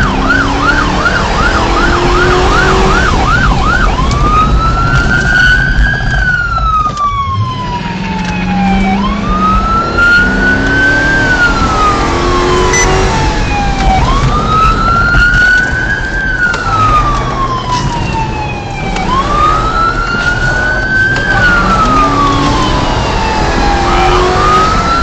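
Police car siren heard from inside the cruiser, over engine and road noise. It switches from a fast yelp to a slow wail about four seconds in, and the wail rises and falls about every five seconds.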